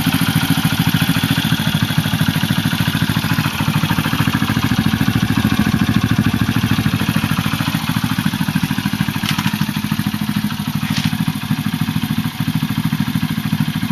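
Honda CD90 single-cylinder four-stroke engine, bored up to 105cc, idling steadily through a Beet Industry aftermarket silencer with an even, rapid exhaust pulse.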